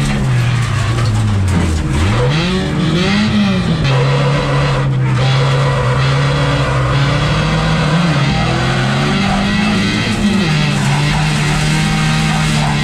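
Front-wheel-drive jokkis race car's engine heard from inside the stripped cabin, working hard on a loose dirt track. The revs drop sharply about two seconds in, climb back a second later, and then hold fairly steady with a couple of brief dips, over a constant rush of tyre and track noise.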